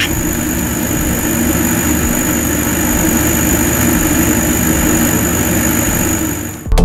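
Steady mechanical hum and high thin whine of a laser engraver's fans and pumps, running on with the engraving finished. It cuts off abruptly near the end.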